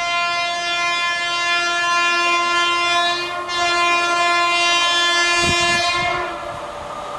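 WAP-5 electric locomotive's horn sounding one long steady note, with a brief dip about three and a half seconds in, and cutting off about six seconds in. The approaching train's running noise then rises.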